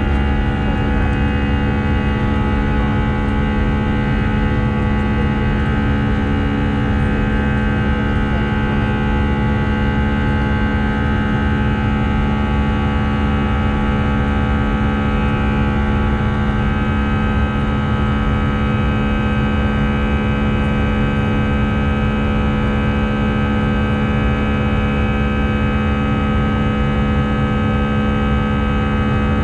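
Airbus A319-111 cabin noise in the climb after takeoff: the steady drone of its CFM56 jet engines and rushing air, with a strong low hum and many steady tones over it.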